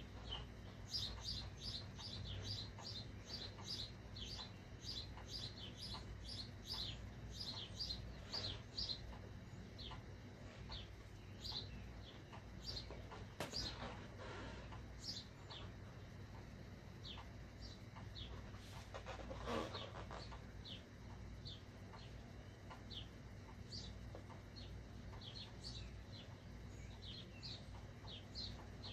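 Felt-tip Sharpie marker squeaking on a rubber balloon as letters are drawn: a quick run of short high squeaks, about three or four a second, for the first several seconds, then scattered squeaks. There is a longer rubbing squeak about two-thirds of the way through.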